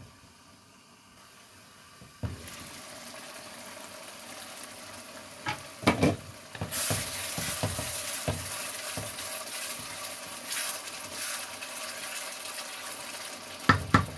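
Watery tomato and tuna sauce simmering in a wok, quietly at first under its glass lid, then hissing and bubbling louder once the lid comes off with a few knocks about six seconds in. A wooden spatula stirs and scrapes, knocking against the pan now and then.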